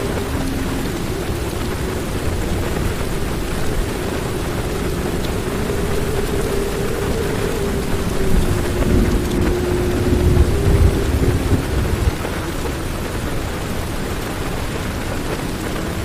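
Heavy rain falling steadily on a car, heard from inside, with a low rumble of thunder that swells about halfway through and dies away a few seconds later.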